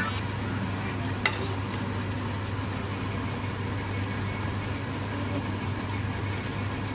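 Cooked biryani rice being gently turned with a ladle in a large aluminium pot, over a steady hiss and low hum, with one light tap of the ladle about a second in.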